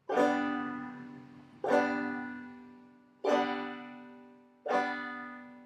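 Banjo strings struck downward by a single finger, the basic clawhammer striking stroke: four separate strums about a second and a half apart, each chord ringing and dying away.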